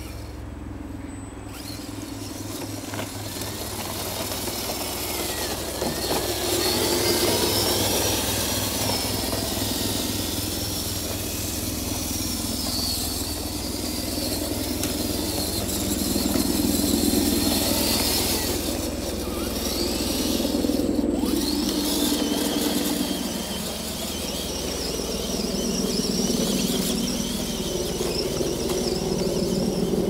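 Electric motor and gears of a radio-controlled 6x6 Mercedes scale truck whining as it drives over dirt and dry leaves, the whine rising and falling in pitch with the throttle, over the rustle and crunch of the tyres in the leaf litter.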